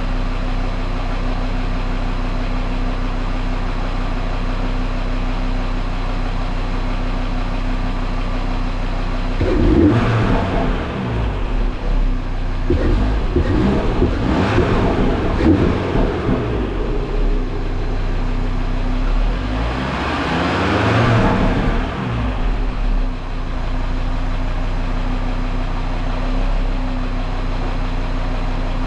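2018 Audi RS3's turbocharged 2.5-litre five-cylinder, fitted with an open-cone CTS 4-inch intake, idling steadily under the open bonnet, then revved in several quick blips from about ten seconds in and once more around twenty seconds, each time falling back to idle.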